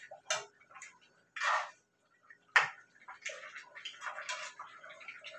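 A spoon stirring stew chicken in a pan, knocking and scraping against the pan, with one sharp knock about two and a half seconds in, the loudest, followed by a busy run of small clicks.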